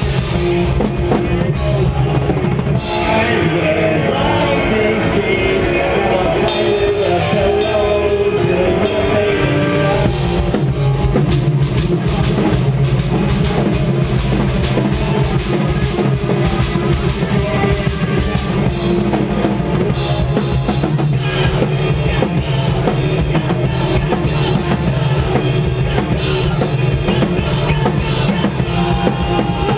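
A hardcore band playing live and loud, with a driving drum kit and heavy bass drum under the full band.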